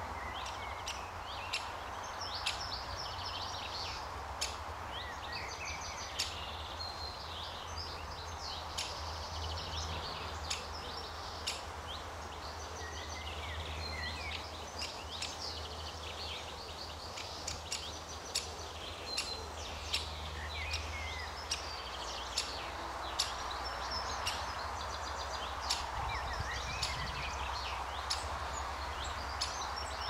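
A great spotted woodpecker nestling calling from its nest hole with short, sharp calls repeated every second or two, begging for food. Other songbirds sing in the background over a steady low rumble.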